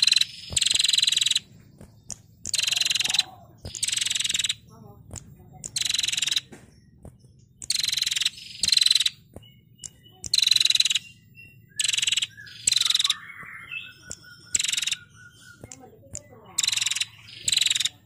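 Female prenjak singing a string of loud, harsh trills ('ngetirr'), each half a second to a second long and repeated every second or two. Softer short chirps come in the gaps.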